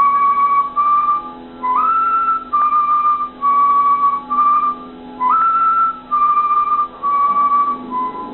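Carnatic bamboo flute (venu) playing an alankaram exercise: a run of about ten separate notes with short breaks between them, two of them sliding up into a higher note, over a faint low steady drone.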